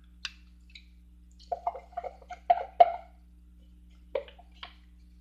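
Wooden stir stick knocking and scraping against a plastic measuring cup: a quick run of clacks about a second and a half in, then two lone taps near the end.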